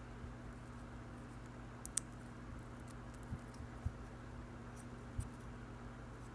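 A few sharp, small clicks and taps from hands handling tiny plastic drone parts, a camera being slipped into a micro-quad frame, over a steady low hum. The loudest click comes about two seconds in.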